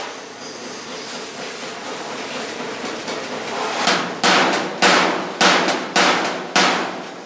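Panel beating: a hammer striking sheet-metal car body panels by hand. After a few seconds of low shop noise, six sharp blows come at a little under two a second in the second half.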